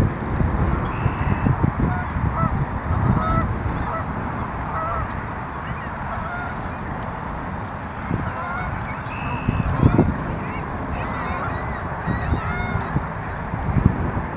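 Scattered bird calls, short notes bending up and down in pitch, over a steady low rumble of wind and water that swells about ten seconds in.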